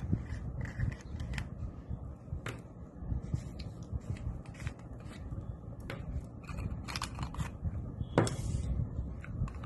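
Irregular clicks, scrapes and knocks of a plastic rechargeable torch being handled and taken apart by hand, with one louder click about eight seconds in.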